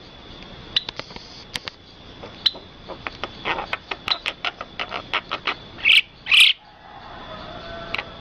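Birds chirping: a quick run of short, sharp chirps and whistles, with two louder, harsher calls about six seconds in, over a faint steady high whine.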